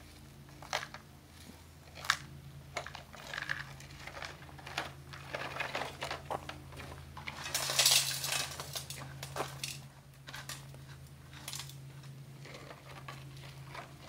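Gravel and small stones crunching and clattering as they are scooped by hand and dropped into a toy dump truck, a string of irregular clicks with a louder burst of rattling about eight seconds in.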